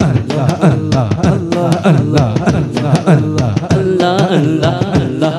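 Devotional naat music performed live: a fast hand-drum rhythm with repeated sliding bass strokes, and a man's singing voice coming in about four seconds in.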